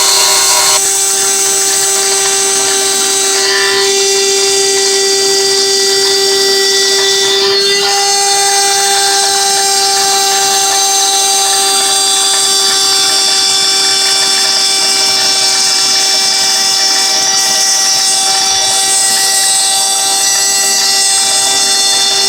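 CNC router spindle running steadily with a constant whine, machining the workpiece, with a slight change in tone about eight seconds in.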